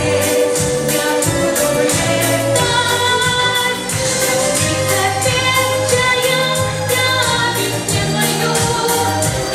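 A girl singing a song over a pop backing track, with long held notes above a steady drum beat and bass line.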